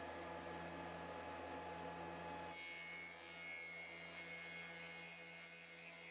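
Faint steady electrical hum, with a thin high whine joining it about two and a half seconds in.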